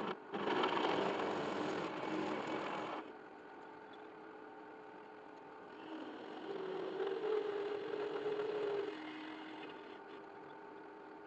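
A motorised machine running: a loud rushing noise for about the first three seconds, then quieter, with a steady hum that swells between about six and nine seconds.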